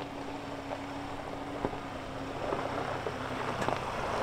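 Volkswagen Amarok pickup's engine running steadily at low revs as the truck crawls along a rough dirt track, with scattered small clicks that get busier near the end.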